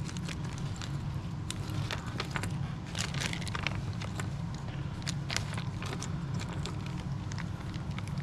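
Plastic packaging and small kit parts being handled, with scattered crinkles and clicks over a steady low hum.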